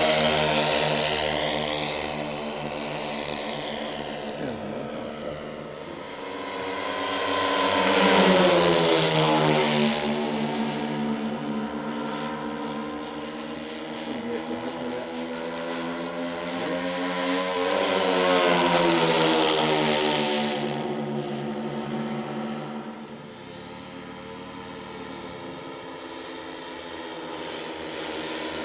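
Radio-controlled model warbird's piston engine and propeller in flight, making three low passes. The sound grows loud as the model comes by and drops in pitch as it goes away, then runs quieter in between.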